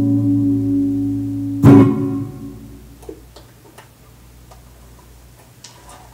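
Semi-hollow electric guitar ending a jazz tune: a held chord rings, then a final chord is struck about a second and a half in and fades out over the next second. Faint ticks and a small handling click follow near the end.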